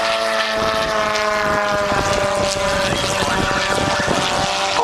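Propeller aircraft engine droning in flight, its pitch falling slowly and steadily as it passes.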